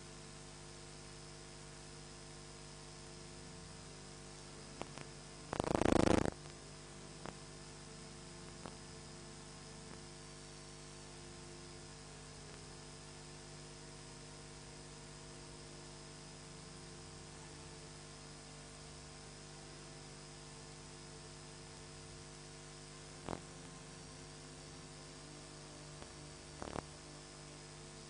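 Steady electrical hum with a layer of hiss, like the background of a sound system or recording chain with no one speaking. A loud, brief noise lasting under a second comes about six seconds in, and a few faint clicks are scattered through.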